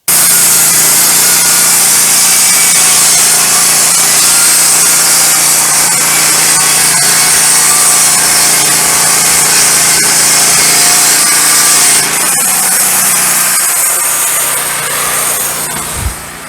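Wood-Mizer LT15 Go band sawmill cutting through a pine log, its engine running steadily under load with the blade hissing through the wood. The sound changes about twelve seconds in and dips briefly near the end.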